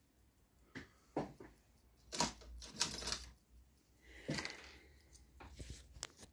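Irregular handling noise: a scattered series of soft clicks and knocks with a few brief rustles, the loudest knock a little after the middle.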